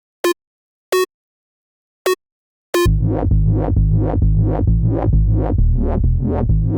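Xfer Serum 2 software synthesizer preset demo. Three short, separate synth notes sound, then about three seconds in a UK garage style loop starts, with a heavy synth bass and steady electronic percussion.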